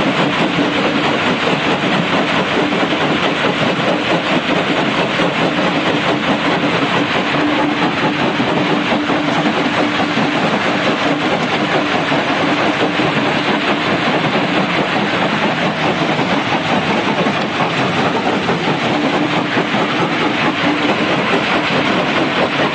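30×9 jaw-type stone crusher running, its flywheels turning, making a loud continuous rattling clatter over a steady hum.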